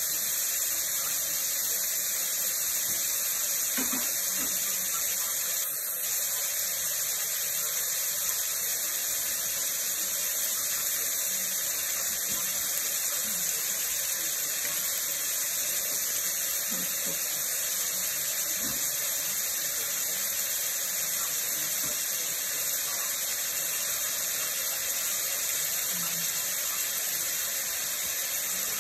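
Diced pork frying in oil in a steel wok, with a steady, even sizzling hiss.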